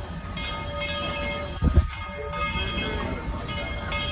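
Small steam locomotive running slowly toward the listener, a steady low rumble with high tones that come and go. A sudden low thump about one and a half seconds in is the loudest sound.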